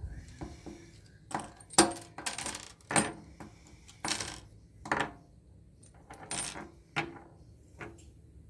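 Small metal parts from stripped connectors, such as screws and brass pieces, are tossed one at a time into sorting containers, making about eight or nine sharp metallic clinks at uneven intervals.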